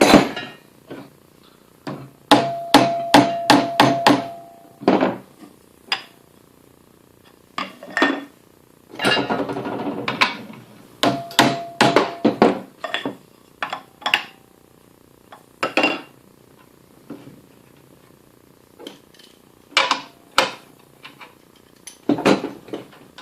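Sharp taps and knocks on the metal parts of a belt grinder being adjusted, some with a short ring, coming in quick runs of several strikes. There is a brief scraping sound near the middle.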